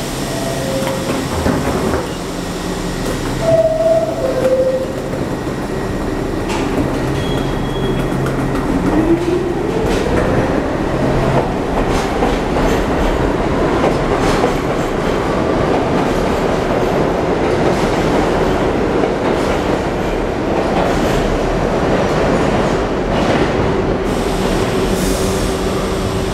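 R62 subway train on the 3 line pulling out of the station. A two-note descending chime sounds a few seconds in. About eight seconds in, the motors give a rising whine, and the wheels then rumble and clatter louder as the train picks up speed past the platform, easing off near the end.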